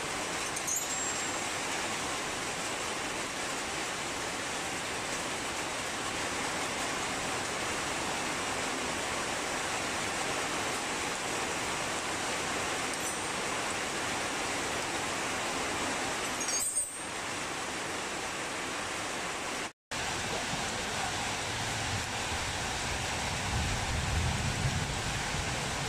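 A steady rushing hiss with no clear tool sounds, broken for an instant by an edit near the end.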